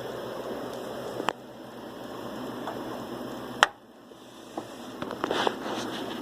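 A few light clicks and taps from a CPU being set into its motherboard socket by hand, over a steady background hiss. The sharpest click comes about halfway through, with fainter ones near the end.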